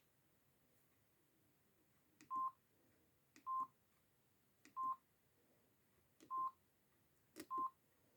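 Samsung SGH-E600 mobile phone's keypad beeping as its keys are pressed: five short single-pitched beeps a little over a second apart, each coming just after the click of a key.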